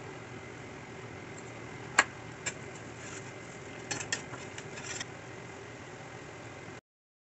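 A spoon clinks against a stainless steel frying pan while stirring diced onions. There is one sharp clink about two seconds in and a quick run of lighter clinks around four to five seconds, over the steady hiss of the onions cooking in butter. The sound cuts off suddenly shortly before the end.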